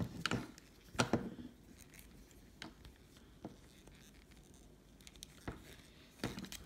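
Plastic parts of a Transformers figure being handled and snapped together: scattered sharp clicks and pops as joints and pegs seat, the sharpest about a second in.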